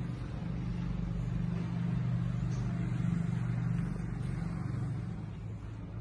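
A motor vehicle's engine passing by: a low hum that swells to its loudest about three seconds in and then fades.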